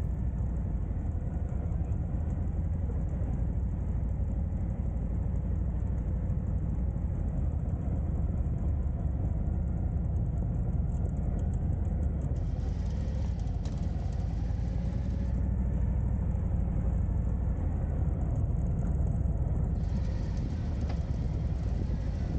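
Motorcycle engine running at low speed, a steady low rumble as the bike rolls along.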